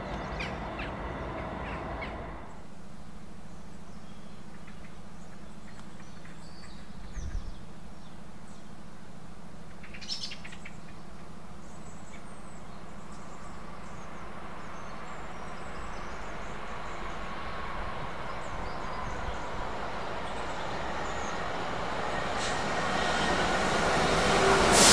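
The noise of a passing train stops sharply about two seconds in, leaving a steady low hum with scattered bird calls, one louder call about ten seconds in. In the last several seconds another train approaches, growing steadily louder.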